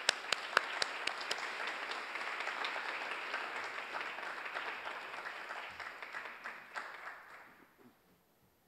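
Audience applauding, sharp individual claps in a dense patter that fades away about eight seconds in.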